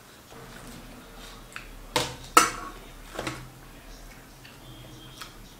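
Clatter of a whole crispy fried fish being handled on a steel plate: two sharp knocks close together about two seconds in and a smaller one about a second later, with faint ticks and rustles between.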